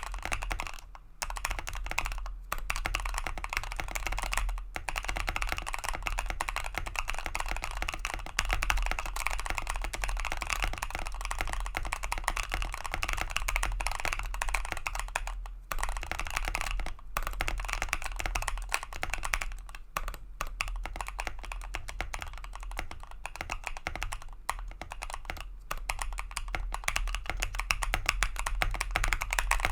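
Continuous typing on a Bakeneko 65 mechanical keyboard with lubed Gazzew Boba LT linear switches, PE foam and a masking-tape mod on the PCB: a steady stream of muted, thocky keystrokes, broken by a few brief pauses.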